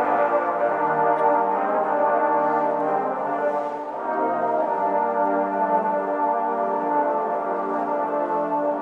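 Trombone ensemble playing a fanfare: full, sustained brass chords, moving to a new chord about four seconds in.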